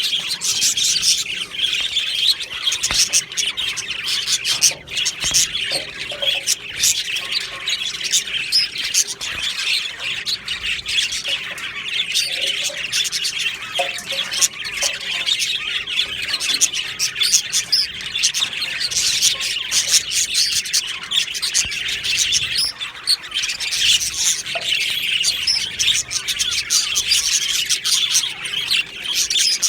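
A colony of budgies (budgerigars) chirping and warbling together in an aviary: continuous, dense, overlapping chatter of many short chirps and squawks.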